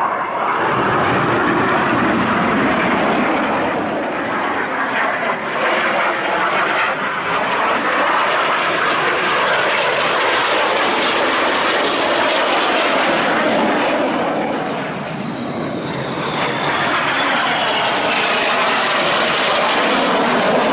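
BAE Hawk T1 jets of the Red Arrows passing low: loud jet engine noise that swells in suddenly, eases briefly about two-thirds of the way through, then builds again with a falling whine as a jet goes by.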